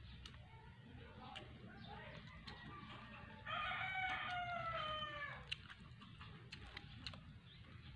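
A rooster crowing once: one drawn-out call of about two seconds, starting about three and a half seconds in and dropping in pitch at the end. Faint scattered clicks run around it.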